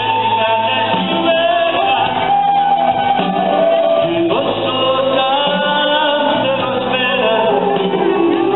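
Live band music through a PA: a man singing a melody that slides between notes, over keyboard and a steady low bass line.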